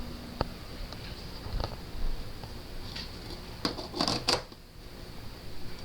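Scattered clicks and knocks of hard objects being handled: one sharp click near the start, another a second later, and a quick cluster of clacks about four seconds in.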